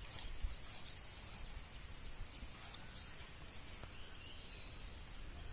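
Small birds chirping: a handful of short, high chirps in the first three seconds, over a faint low rumble.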